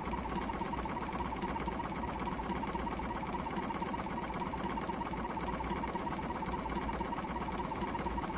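Air compressor motor in a jump-starter box running steadily with a fast, even chatter over a low hum. The motor was seized and is still stiff; the owner says it sounds like the motor is a bit tight.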